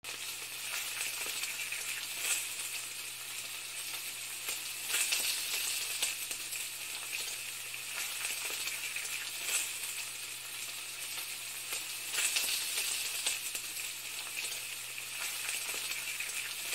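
Food sizzling in a hot pan: a steady crackling hiss with a few slightly louder crackles scattered through it.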